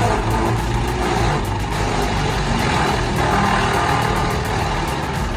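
Wood chipper running, its engine droning steadily as it works.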